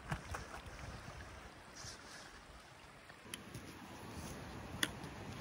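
Shallow brook running over rocks, a faint steady rush. About three seconds in it gives way to quieter background with a few sharp clicks, the loudest near the end.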